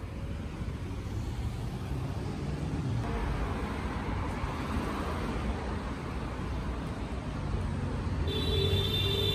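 Road traffic on a busy street: cars driving past, one passing swell building in the middle. A steady pitched tone comes in near the end.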